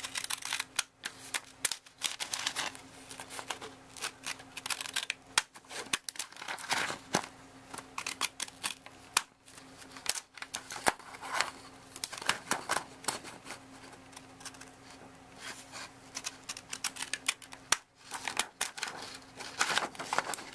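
Decorative-edge craft scissors cutting through a sheet of white paper: runs of short, crisp snips with brief pauses between them.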